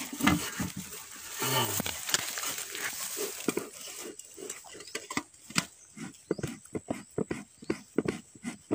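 Bee smoker's bellows being squeezed by hand: a steady run of short puffs of air, about three a second, starting about four seconds in. Before it, handling noise and a short low grunt-like sound.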